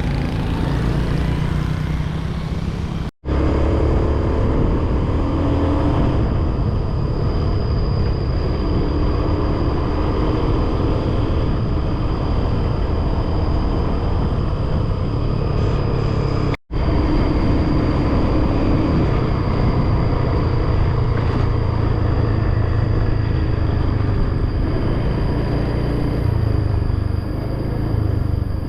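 Motor scooter riding along a road: steady engine and road noise. It cuts out abruptly to silence twice, about three seconds in and just past the middle.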